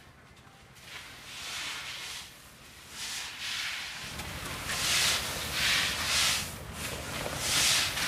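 Wooden rakes dragged through dry paddy rice spread on tarps, a hissing swish of loose grain with each stroke, the strokes coming about once a second and louder in the second half. A low rumble sits under them in the second half.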